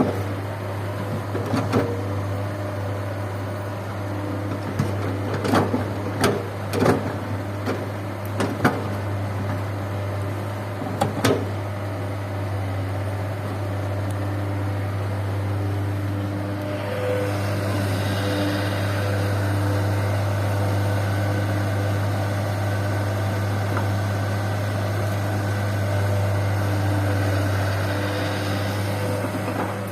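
Komatsu excavator working over a dump truck: a steady diesel engine drone, with sharp knocks and clanks through the first dozen seconds, then a louder hiss and whine of the engine and hydraulics under load from a little past halfway.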